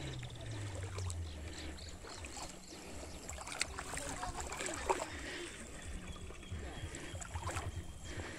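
Lake water lapping and sloshing at the shore, with wind buffeting the microphone in a low rumble. Two sharp clicks stand out a little past the middle.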